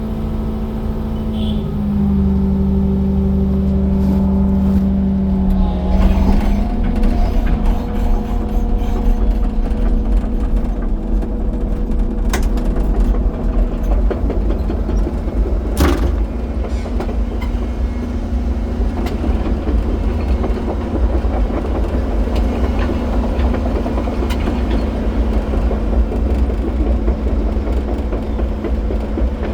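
Excavator's diesel engine running steadily with a deep rumble, its note shifting about 2 and 6 seconds in, with a few sharp knocks along the way.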